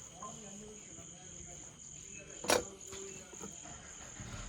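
Crickets chirping in a steady high-pitched drone, with one sharp click or knock about two and a half seconds in.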